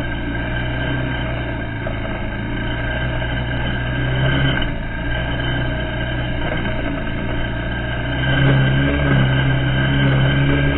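ATV engine running while riding, its note easing off early on and picking up again around the middle, loudest about three quarters of the way through as the throttle opens.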